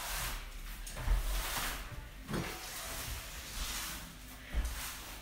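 Irregular rustling and soft low thuds, about one a second: handling noise from a hand-held phone being swung around.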